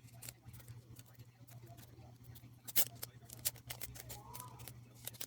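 Album packaging and photocards being handled, with light clicks, taps and rustles; the sharpest click comes just before the middle. A steady low hum runs underneath.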